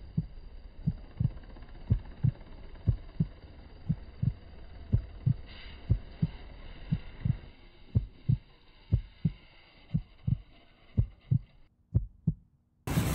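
Heartbeat sound effect: a steady double thump about once a second over dull, muffled background sound. The background drops away near the end, leaving only the beats.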